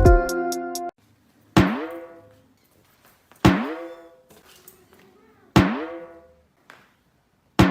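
Music cuts off about a second in. Four resonant pitched drum strikes follow, about two seconds apart, each one ringing out and fading.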